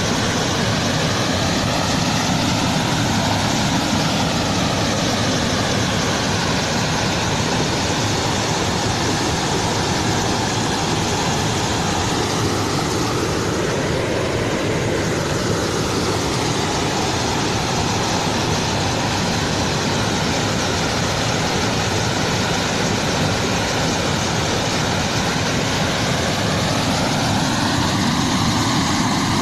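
Floodwater rushing over a concrete dam spillway: a loud, steady roar whose tone slowly shifts.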